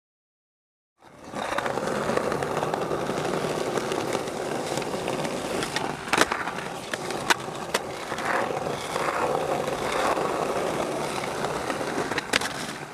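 Skateboard wheels rolling hard over paving, a steady rumble that starts about a second in. Sharp board clacks from tricks being popped and landed come about six seconds in, twice more soon after, and again near the end.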